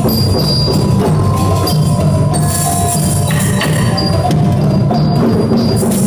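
A group of hand drums, djembes among them, played together in a dense, continuous rhythm, with a few held pitched notes ringing over the drumming.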